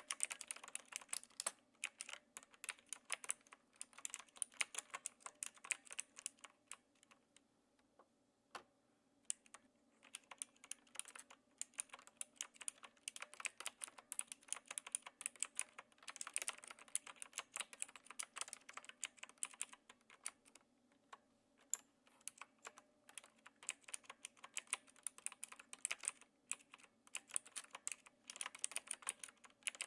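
Typing on a Knewkey Rymek typewriter-style mechanical keyboard with clicky blue switches: a quick stream of key clicks in bursts, with a short pause about eight seconds in.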